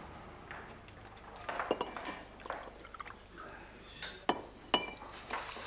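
Drinking glasses and tableware clinking as they are handled on a table: a scatter of short chinks, some with a brief glassy ring, the clearest around four to five seconds in.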